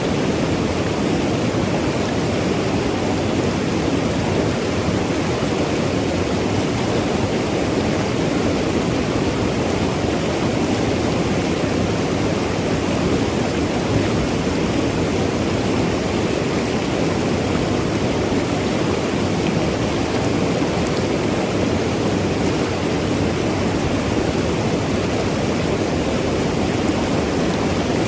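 Mountain river rushing over rocks, a steady, even rush of water with no pauses or changes.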